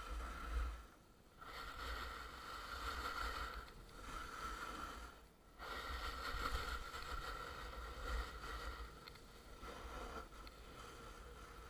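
Snowboard sliding and scraping on packed snow during a run, with wind rumbling on the microphone; the scraping drops away briefly twice, about a second in and about five seconds in.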